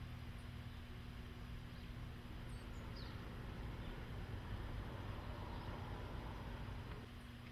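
Faint outdoor ambience: a steady low hum with a few faint bird chirps in the middle.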